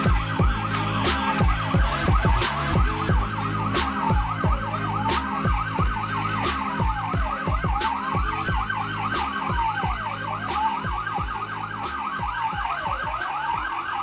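Emergency vehicle's electronic siren sounding continuously: a fast warble laid over a slower fall-and-rise sweep that repeats about every second and a half.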